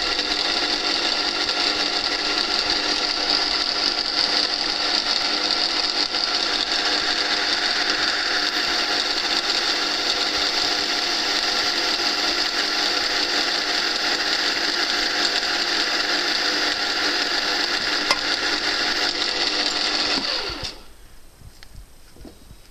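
CNC lathe turning a part: a steady, many-toned mechanical whine from the spindle drive. About twenty seconds in, the pitch slides down and the sound dies away as the spindle stops.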